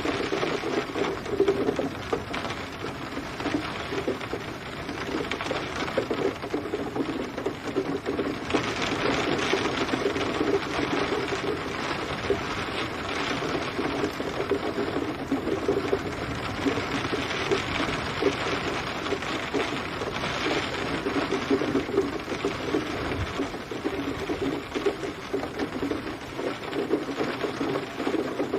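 Steady rain: a dense patter of many drops that swells and eases slightly without stopping.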